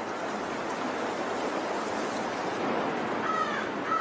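Creek water rushing steadily over stones, with two short arched calls, from an animal or bird, near the end.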